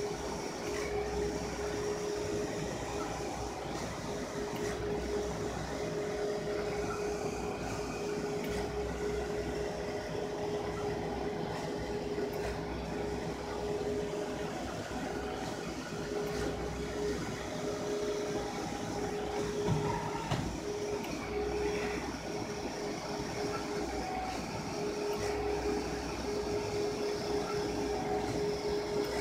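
HP wide-format printer running as it prints: a steady mechanical hum with one constant tone, and short higher whines coming and going as the print carriage shuttles back and forth across the media.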